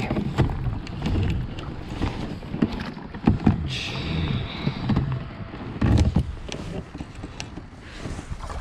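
Handling noise from an angler fighting a bass from a plastic kayak: the fishing reel being cranked, with many sharp clicks and knocks on the rod and hull, and a short hiss about four seconds in.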